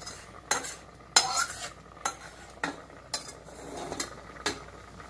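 Steel spatula scraping and knocking against a metal kadai as a hot spiced tempering is scraped out into a pressure cooker of sambar base: about seven sharp scrapes, one every half second or so, with some sizzling.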